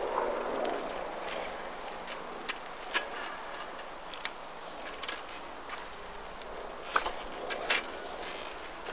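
Steady outdoor noise with a handful of sharp clicks and taps scattered through it.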